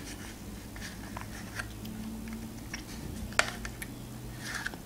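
Metal spoon clicking and scraping in a plastic yogurt cup, with soft mouth sounds of eating yogurt. One sharper click comes about three and a half seconds in.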